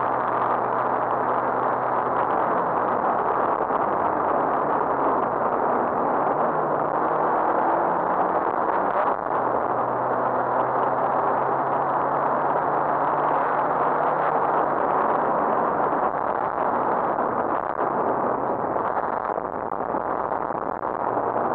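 Rally car driving at speed, heard from inside the cabin: the engine runs under load with its note shifting up and down, under a steady rush of road and wind noise.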